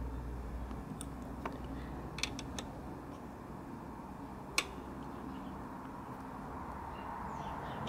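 A few light metallic clicks of a hex key and fittings being worked on a Brompton's rear brake caliper nut, the sharpest a little past halfway, over a steady low hum.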